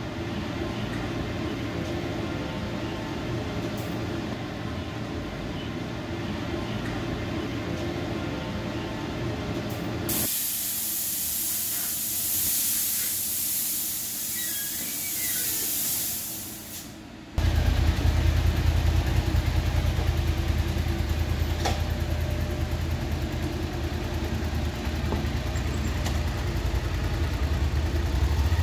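A steady mechanical hum, broken about ten seconds in by several seconds of loud air hissing, then from about seventeen seconds on a motorcycle engine running with a low, even rumble.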